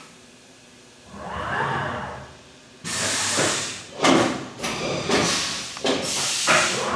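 Haas UMC-750SS five-axis CNC mill working between operations: a rising and falling swell of machine motion, then from about three seconds in a run of loud hissing bursts.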